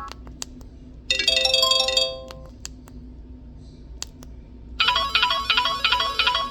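Preloaded ringtones playing from a Samsung Convoy 4 phone's speaker: a short chiming melody about a second in, then a second tune of quickly repeating notes near the end, with short clicks in between.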